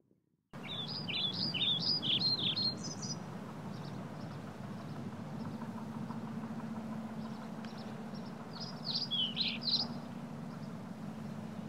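A songbird singing in two bursts of rapid, high warbling phrases, one near the start and one near the end, over a steady low outdoor hum.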